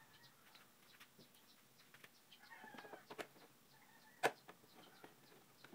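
Screwdriver working a headlight mounting screw: faint ticks and scrapes and one sharp click about four seconds in. Faint clucking calls, like a chicken's, sound in the background.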